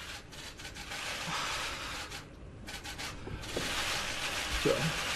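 A man's heavy, shaky breathing close to the microphone as he tries to hold back tears: two long breaths, with a brief choked sob near the end.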